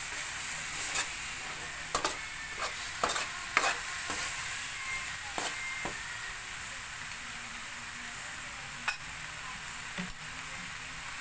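Beef slices sizzling steadily in a wok, with a spatula scraping and clicking against the pan as the meat is stirred during the first half; later only a couple of single clicks sound over the sizzle.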